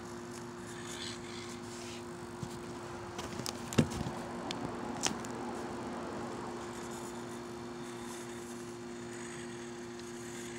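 Small Axial AX24 RC rock crawler working slowly over rocks: its tyres and chassis click and knock against stone, with a cluster of sharp knocks about four seconds in, the loudest near the start of it. A steady low hum runs underneath.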